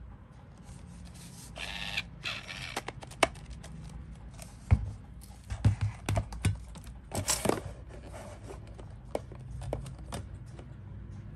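Hands handling a white plastic Air Wick Freshmatic dispenser and its aerosol refill can: a plastic scrape and rustle about two seconds in, then scattered clicks and soft knocks. The knocks come mostly in the middle, as the pieces are turned over and stood upright.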